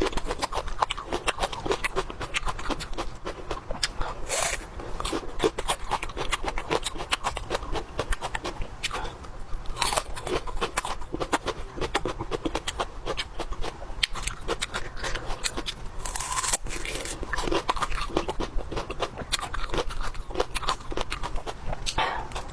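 Close-miked eating of crisp food: dense, irregular crunching and chewing, with a few louder crunches along the way.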